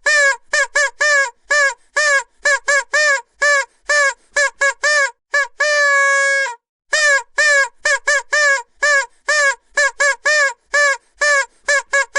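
Vuvuzela blown in a rapid string of short toots on one note, each with a slight pitch flick at its start, and one longer held blast about six seconds in.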